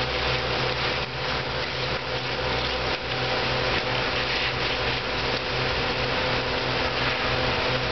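Heavy machinery engine running steadily with a constant hum and no change in pitch.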